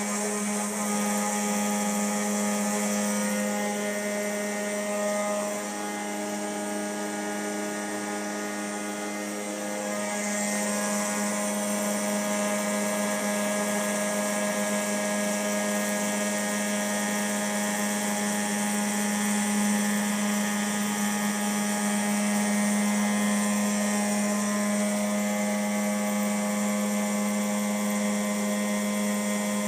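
Home-built epoxy-concrete CNC machine running a machining pass: a steady whine made of many tones, a little softer between about five and ten seconds in.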